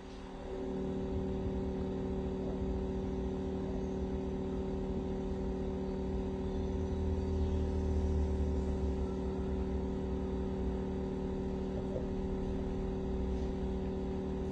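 A steady mechanical hum with a low rumble that grows louder for a few seconds in the middle.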